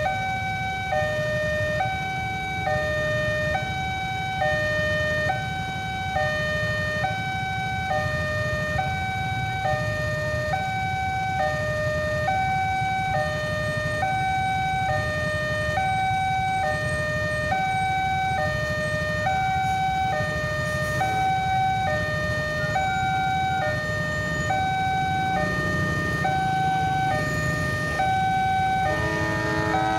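Railway level-crossing warning alarm sounding its electronic two-tone chime, a higher and a lower tone alternating evenly, each held just under a second.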